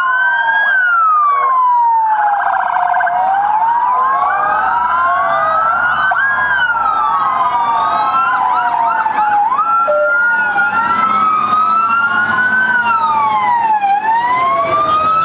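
Loud sirens of several convoy vehicles, a gendarmerie pickup and fire trucks, sounding together. Their slow rising and falling wails overlap, broken twice by stretches of fast yelp.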